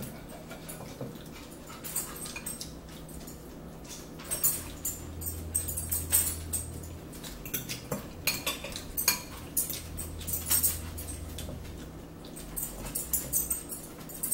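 Metal fork clinking and scraping against a salad bowl: irregular short, sharp clicks as salad is speared and lifted, with mouth and chewing sounds of eating between them.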